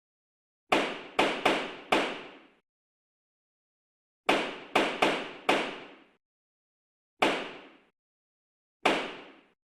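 Judge's gavel striking: two quick runs of four knocks each, then two single knocks, each with a short ringing decay.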